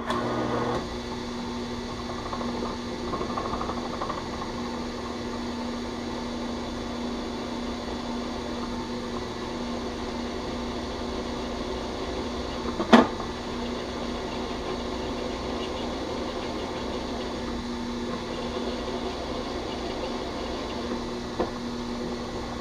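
Drill press running steadily as a step drill cuts a large hole through a clamped plate, with one sharp click about 13 seconds in.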